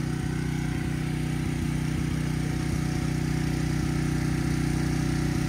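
Portable gasoline generator running steadily at a constant engine speed, one unchanging engine note.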